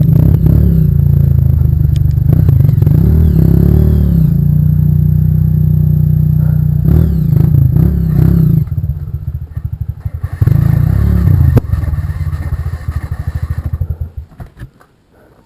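Off-road trail motorcycle engine running loud and revving, its pitch rising and falling. It drops off about two thirds of the way through, comes back briefly, then fades out near the end.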